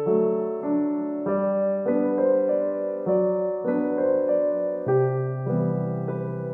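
Background piano music, with a new note or chord struck roughly every half second.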